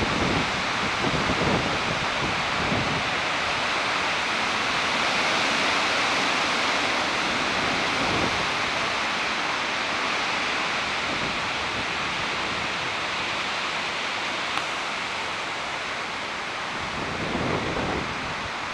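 Lingering wind of a passing tropical storm rushing steadily through the trees, with gusts buffeting the microphone in the first few seconds and again near the end.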